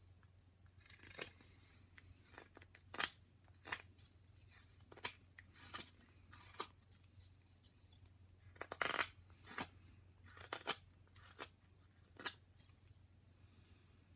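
Carving knife slicing shavings off a wooden figure being whittled by hand: a series of short, sharp cuts at irregular intervals, with a quick run of cuts about nine seconds in.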